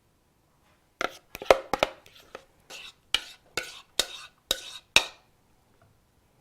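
A series of about ten sharp kitchen knocks, roughly two a second, from a utensil striking a hard surface, starting about a second in and stopping a second before the end.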